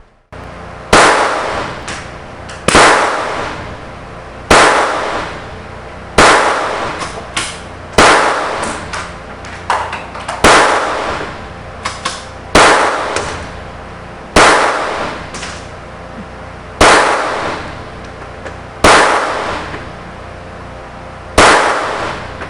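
Stoeger Luger .22LR pistol firing shot after shot: eleven loud, sharp cracks about two seconds apart, each trailing off in a ringing decay. Fainter cracks fall between some of them.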